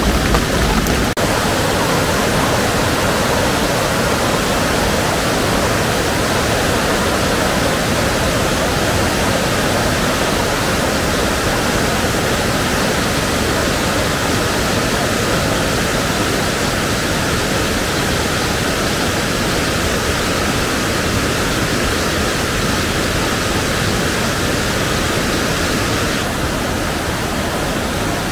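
Rushing floodwater of a rain-swollen mountain river: a loud, steady wash of water noise, its deep low rumble dropping away about a second in.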